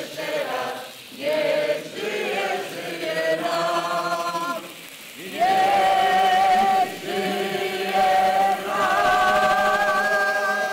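A group of people singing together, in phrases at first and then holding long notes through the second half.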